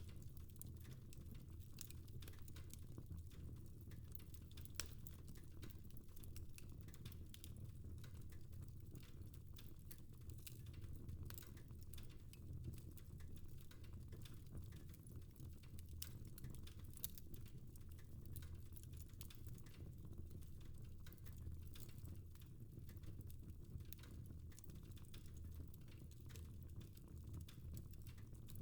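Fireplace fire crackling: faint, scattered small pops and snaps over a low steady rumble.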